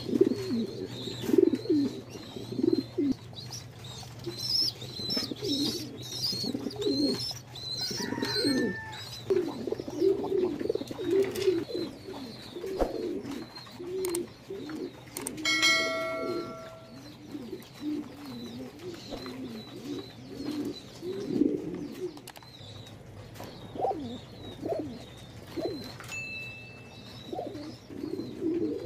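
Many domestic fancy pigeons cooing, low overlapping coos repeating throughout over a steady low hum. A short bell-like chime sounds once about halfway through.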